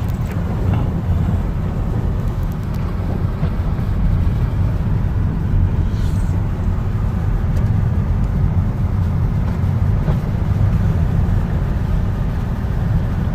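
Steady low road noise inside a moving car's cabin: engine and tyre rumble with a hiss of wind, as the car drives slowly on a snow-covered highway.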